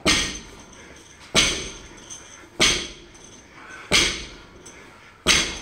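Barbell loaded with bumper plates touching down on a rubber gym floor between deadlift reps: five sharp thuds in a steady rhythm, about a second and a quarter apart.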